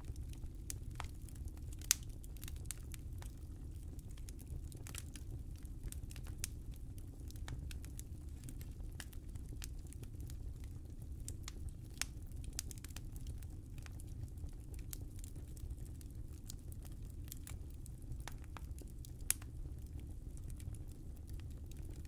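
Wood fire burning in a fireplace: a steady low rumble of flames under constant small crackles. A few sharper pops stand out, about two seconds in, about twelve seconds in and about nineteen seconds in.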